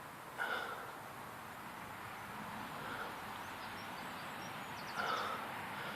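Quiet outdoor background hiss with no gunshot, broken by two brief soft sounds, about half a second in and near the end, and a faint run of ticks just before the second.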